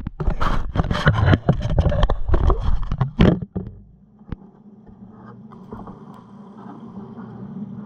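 A camera being handled at close range: loud knocks, bumps and scraping right on the microphone for about the first three and a half seconds. A steady low hum carries on underneath once the handling stops.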